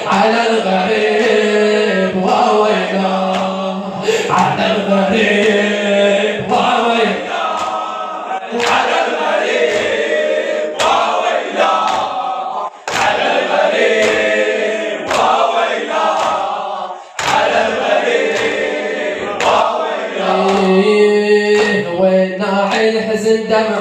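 Men chanting a Shia latmiya mourning lament together, with the slaps of hands beating on chests (latm) keeping a steady rhythm under the voices.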